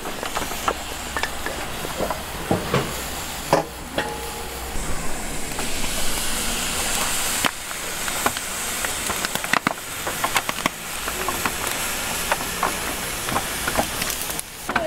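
Steady hiss with many sharp clicks and knocks scattered throughout, the sounds of food-stall kitchen work. A brighter, higher hiss swells for a couple of seconds around the middle.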